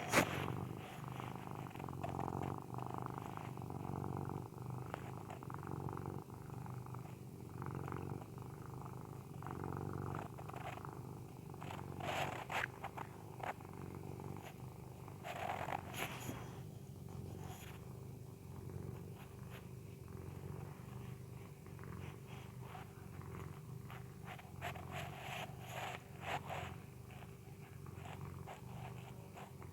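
Persian cat snoring in its sleep: a steady low rasping rumble that rises and falls with each breath, with a few louder, sharper breaths around the middle.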